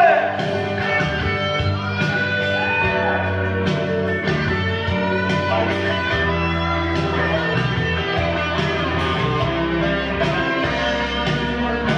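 Karaoke backing track playing an instrumental break: an electric guitar lead with bending, held notes over bass and a steady beat.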